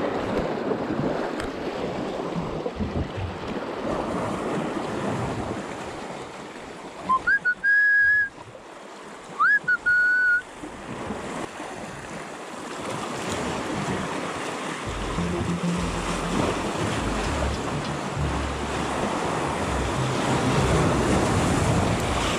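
Sea waves washing against the shore with wind on the microphone. Two loud short whistles come a couple of seconds apart near the middle, each rising and then held. Deeper wind rumble joins in for the second half.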